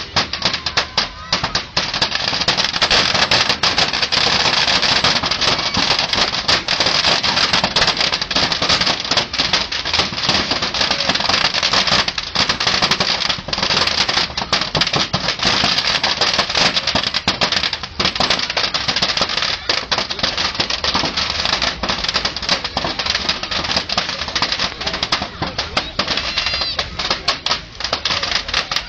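Large bonfire burning, with a dense, continuous crackling of burning wood over a steady rushing noise.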